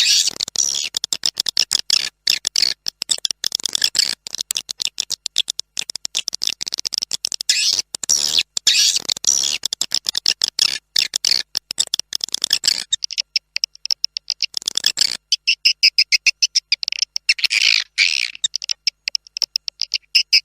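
Recorded swiftlet calls, the lure sound that swiftlet farmers play to draw the birds into a nesting house. It is a dense, fast stream of high chirps and twitters. About 13 seconds in, the faint hiss beneath them drops out, leaving the chirps clearer.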